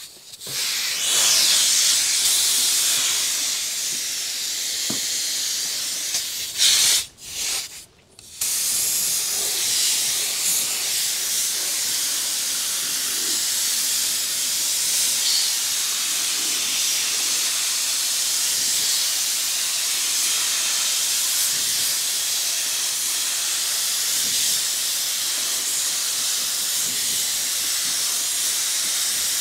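Gravity-feed paint spray gun hissing as compressed air sprays paint onto a car's sill in long steady passes. The hiss cuts out briefly twice about seven seconds in.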